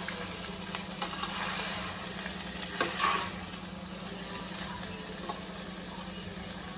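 Chicken pieces and freshly added tomatoes sizzling in oil in a frying pan, stirred with a spatula that scrapes the pan a few times, loudest about three seconds in. A steady low hum runs underneath.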